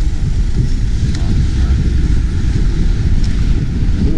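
Wind buffeting the camera microphone of a moving bicycle, a loud, uneven low rumble, with the hum of road traffic mixed in.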